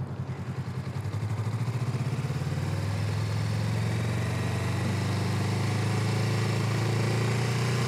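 Motorcycle engine running at low speed during a slow practice run. Its pulses are distinct at first, and it grows a little louder and steadier after about two seconds.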